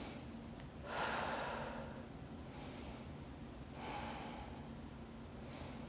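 A woman breathing slowly and audibly while holding a yoga pose: two long breaths, one about a second in and another near four seconds, part of a paced hold of six breaths.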